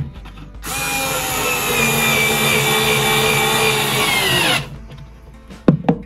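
Electric drill-driver running for about four seconds to drive a screw into plywood, a steady whine that drops in pitch as it stops.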